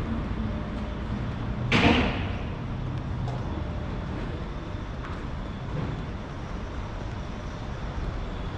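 Street traffic: steady road noise with a low engine hum at first, and one brief, sharp hissing whoosh about two seconds in.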